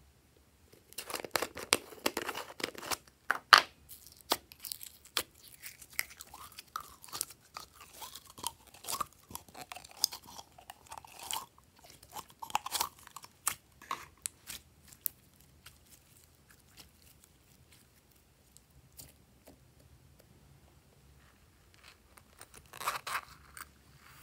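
Thick glossy slime squeezed out of a plastic bottle into a glass dish, with dense wet crackling and popping as air pockets burst; it eases off after about fifteen seconds. A short burst of crackling comes near the end.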